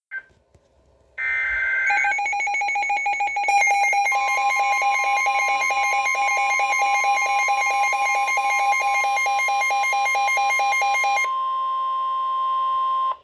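NOAA Weather Radio warning alert: a short warbling burst of SAME digital header data, then a pulsing electronic alarm beep. About four seconds in, the steady single-pitch weather radio warning alarm tone joins it. The beeping stops about eleven seconds in, and the steady tone holds until it cuts off at the end. The alarm tone signals a warning, here a flash flood warning.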